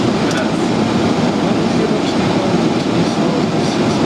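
Steady cockpit noise of a Boeing 737 Classic in flight on approach: a continuous, even rushing of airflow and engines, deepest in the low range.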